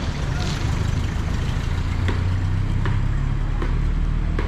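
An engine running steadily with a low, even hum, with a few faint clicks over it.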